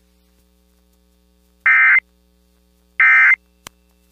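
Two short, identical bursts of EAS end-of-message data tones (the SAME "NNNN" digital squawk), a little over a second apart. They signal the end of the Amber Alert broadcast. A single faint click falls between the second burst and the next.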